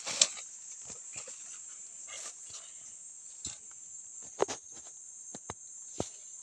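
Steady high-pitched chirring of insects, with scattered rustles and sharp snaps of dry leaves and stalks in the undergrowth.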